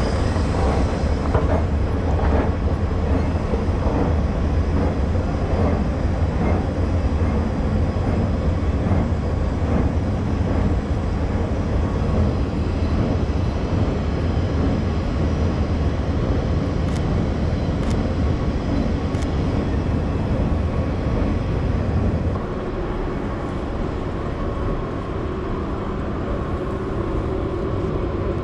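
Steady rumbling noise of a railway station, with train sounds. The deep low rumble drops away about three-quarters of the way through, leaving a lighter hum.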